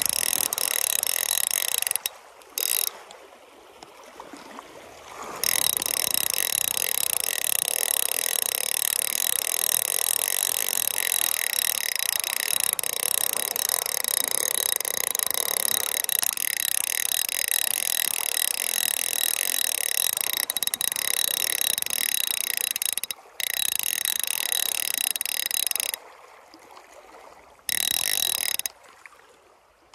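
Fly reel's ratchet buzzing loudly as the spool spins fast, in several spells that start and stop abruptly, the longest lasting about seventeen seconds.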